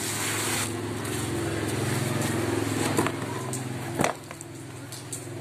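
Cardboard box of a tripod being torn and pulled open by hand: a rustling rip at the start, then two sharp knocks about three and four seconds in, over a steady low hum.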